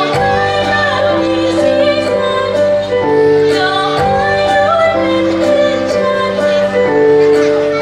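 Song from a children's stage musical: a sung melody about little flowers being her friends, over sustained instrumental backing.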